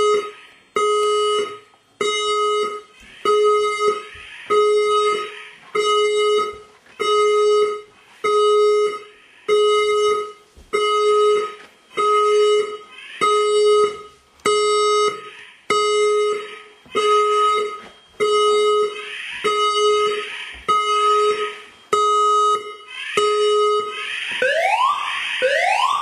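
Fire alarm emergency warning system speakers sounding the alert tone: a low, steady beep repeating a little faster than once a second. Near the end the system moves on to the evacuation tone, a repeating rising whoop.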